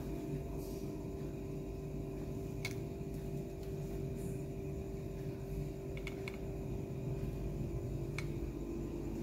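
A steady low machine hum with a few light clicks: one near three seconds in, a quick double tick about six seconds in, and another near eight seconds.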